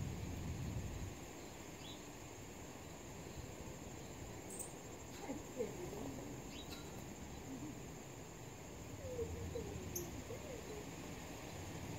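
Steady high trill of crickets, with a few short, sharp bird chips scattered through it over a faint low rumble.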